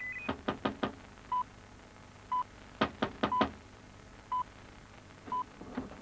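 Knocking on a door: two runs of four quick knocks, about half a second in and again about three seconds in. A short electronic beep repeats about once a second throughout.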